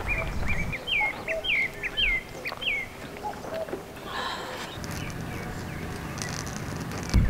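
A bird singing a quick run of clear whistled notes, each sliding down in pitch, about two a second, for the first three seconds. A steady rushing noise follows, and a sharp knock comes at the very end.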